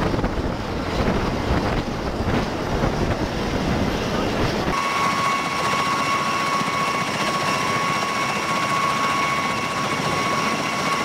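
Rotor wash and wind buffeting the microphone, a dense rush. About five seconds in it changes suddenly to an MV-22 Osprey tiltrotor running on the ground: a steady high whine from its twin turboshaft engines over the rush of the turning proprotors.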